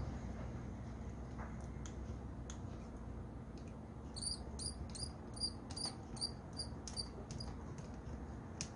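Small hand-tool work on a hand grinder, screwing the new power cord's wires into their terminals: scattered light clicks and ticks. About four seconds in comes a run of about ten short, high chirps, evenly spaced at about three a second, over a steady low hum.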